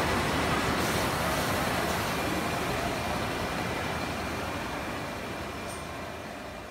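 BEMATO BMT 400ML vertical machining and turning centre running, a steady mechanical noise that fades gradually toward the end.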